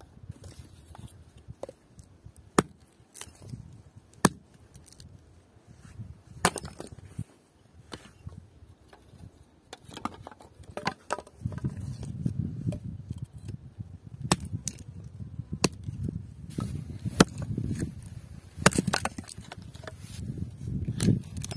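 Hatchet chopping and splitting kindling on a wooden stump: sharp, irregularly spaced strikes of the blade into wood.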